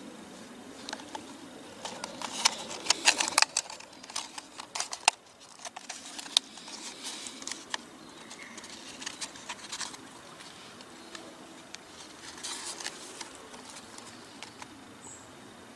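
Dry birch bark crackling and rustling as rolled bark sheets are handled and fitted into a cylinder by hand: clusters of small sharp clicks, busiest a couple of seconds in and again near the end.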